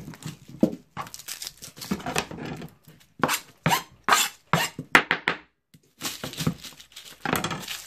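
Garlic being prepared on a plastic cutting board: the mesh bag around the bulb rustled and torn open, then a chef's knife cutting through the garlic head and knocking on the board, with papery skins crackling. Irregular sharp clicks and crackles, with no steady rhythm.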